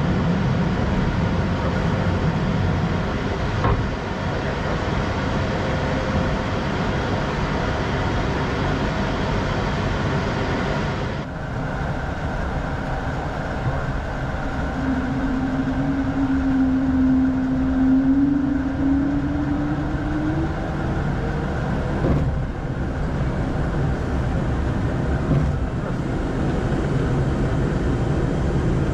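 Steady flight-deck noise of an Airbus A220-100 in the climb: rushing air and the hum of its Pratt & Whitney PW1500G geared turbofans. Partway through, a low hum comes in for about six seconds and rises slightly in pitch before it fades.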